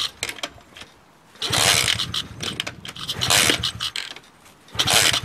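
A pit bike's small single-cylinder engine kicked over about three times. Each kick spins it briefly with a rapid low chuffing and a clatter from the kick-start mechanism, but the engine does not fire: adding fuel has not cured the no-start.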